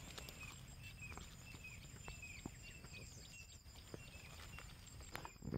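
Faint outdoor background: a short high chirp repeating every half second or so over a low rumble, with scattered soft clicks and a louder thump near the end.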